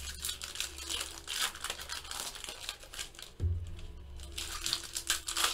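Foil wrappers of baseball-card packs crinkling and tearing as the packs are ripped open, with the cards handled. A low steady tone of background music comes in again about three and a half seconds in.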